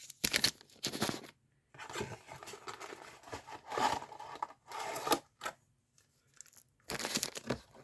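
Cardboard box of trading-card packs being opened and handled: irregular tearing, scraping and crinkling of cardboard and pack wrappers, coming in short bursts with brief pauses.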